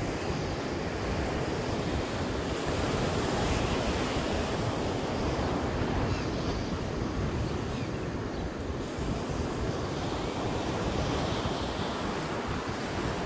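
Ocean surf breaking and washing up a sandy beach, a steady rushing, with wind rumbling on the microphone.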